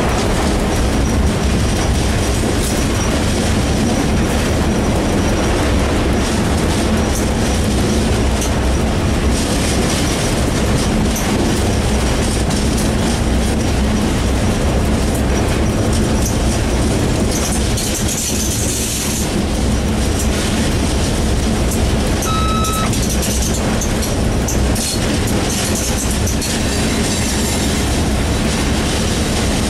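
Class 661 diesel locomotive heard from inside its cab while running: a steady engine drone with wheel and track noise. A single short high beep sounds about two-thirds of the way through.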